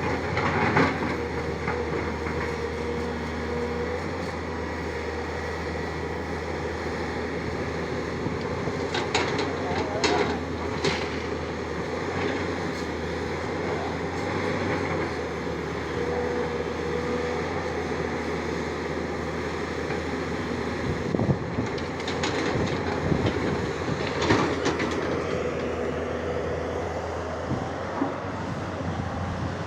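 Tata Hitachi 200 excavator running steadily, with a whine that comes and goes and scattered metallic clanks and knocks from the working machine, most of them around ten seconds in and again in the last third.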